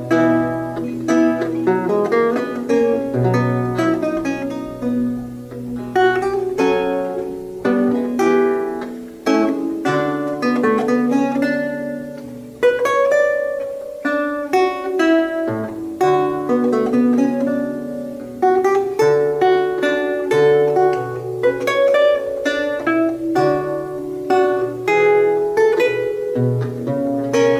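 Solo Renaissance lute played with the fingers: a continuous line of plucked melody notes over held bass notes, without a break.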